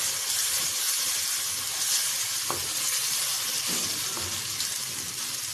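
A wet paste of crushed tomato, ginger, garlic and green chilli sizzling steadily as it fries in hot oil in a clay pot, stirred with a wooden spoon that gives a few light scrapes against the pot.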